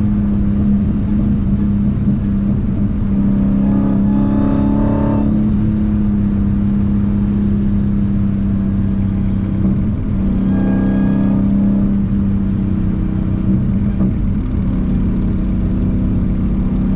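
Dodge Hellcat's supercharged 6.2-litre V8 pulling at a steady high speed, heard from inside the cabin. The engine note holds an even pitch and dips briefly about ten seconds in before settling again.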